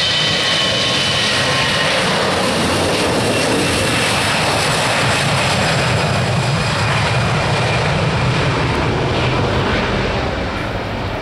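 Airbus A321-211's twin CFM56-5B turbofans at takeoff thrust as the jet accelerates down the runway past the listener: a loud, steady engine noise with a high fan whine that fades out about two seconds in. The sound eases near the end as the aircraft draws away.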